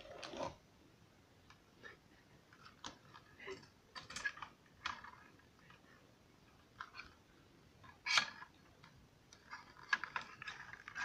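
Handheld reacher-grabber tool being squeezed and waved: its trigger and jaws snap shut in scattered short plastic-and-metal clicks and rattles, about a dozen, a few of them sharper.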